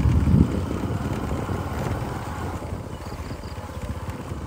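An engine running steadily with a low, pulsing drone that grows gradually quieter.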